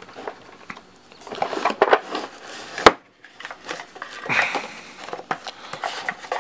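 Stacks of paper playing cards being handled and pushed into the compartments of a cardboard box: irregular rustling, sliding and tapping, with one sharp knock about three seconds in.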